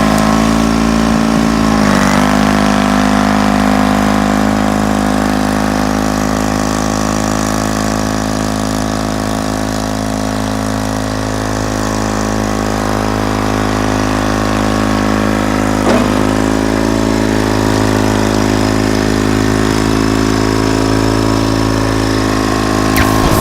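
John Deere 440 crawler tractor's GM-built diesel engine running steadily at low speed. Its pitch dips briefly twice, once about two seconds in and again about two-thirds of the way through, as if the engine takes a load.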